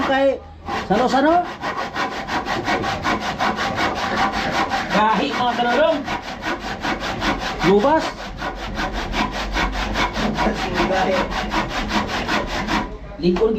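Handsaw cutting through a wooden board in quick, even rasping strokes, with a brief pause just after the start and stopping near the end.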